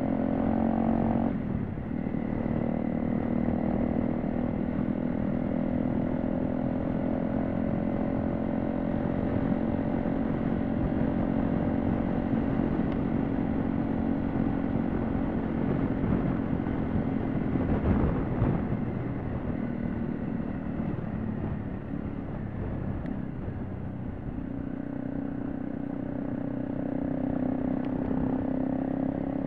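Honda CRF250L's single-cylinder engine running at a steady cruise on a gravel road, with a rough rumble of tyres and wind beneath it. The engine note drops about a second and a half in, and eases off for a few seconds past the middle before picking up again near the end.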